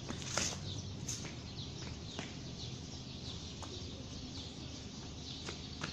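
Small birds chirping in the background, with a few short sharp knocks, the strongest within the first second.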